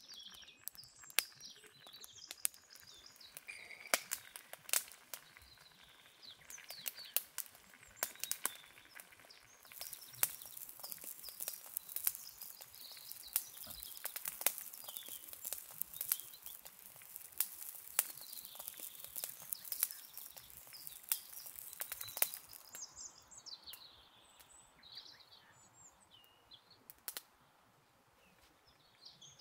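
Wood fire crackling and popping under an iron pan of berry compote at a rolling boil, with a steady hiss of boiling and steam through the middle that cuts off suddenly. Birds chirp throughout.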